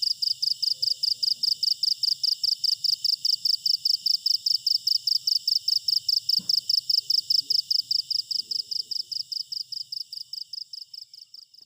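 Cricket chirping in a steady rhythm of about five high chirps a second, fading out near the end.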